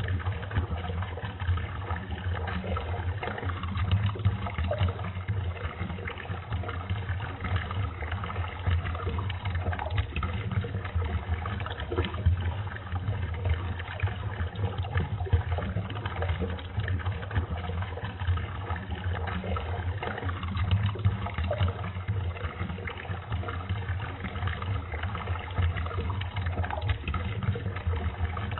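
Urination sound effect played back at quarter speed: a steady, deepened stream of water with a strong low hum underneath.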